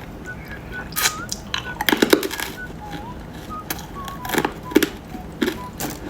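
Close-miked candy handling and eating sounds: an irregular series of sharp crackles and clicks, the busiest about two seconds in.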